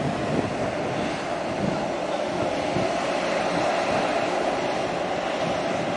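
Steady wind noise on the microphone over choppy water, with a steady drone underneath.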